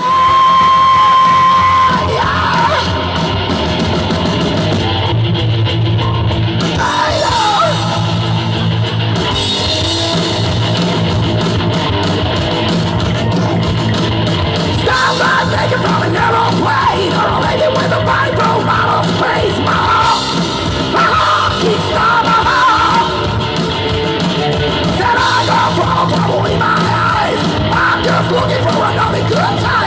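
A live rock band playing loud, heavy rock with shouted singing. It opens with a steady high tone lasting about two seconds before the band comes in.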